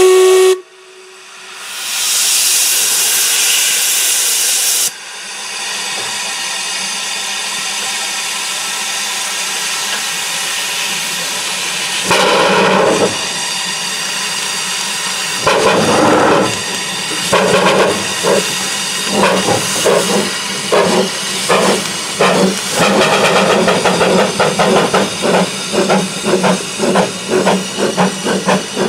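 Two narrow-gauge steam locomotives, Blanche leading a second small engine, start with a brief whistle, then hiss steam with a louder rush for a few seconds. About halfway through they set off, and their exhaust beats start slow and quicken steadily.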